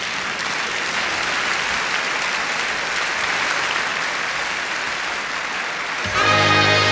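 A large audience applauding. About six seconds in, a jazz big band comes in with a held brass chord over a strong bass note.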